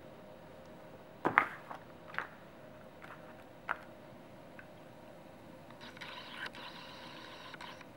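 Faint steady hum of a running Medisana ultrasonic humidifier, with a few handling knocks about one, two and three and a half seconds in. Near the end comes paper rustling as its printed instruction booklet is handled.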